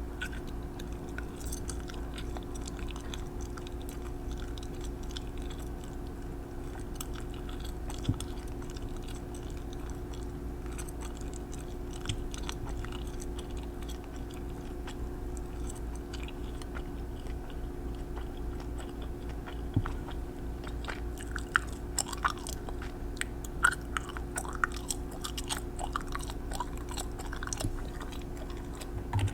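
Sparse small clicks and taps from nail painting with a polish brush and bottle, picked up by a close microphone over a steady electrical hum. The clicks come more often about two-thirds of the way through.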